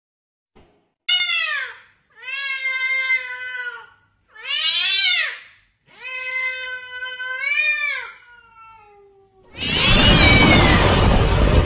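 A cat meowing four times in long, drawn-out calls that bend in pitch, the first short and the others about a second or more each. About nine and a half seconds in, a loud noisy blast of sound effect with a falling tone takes over.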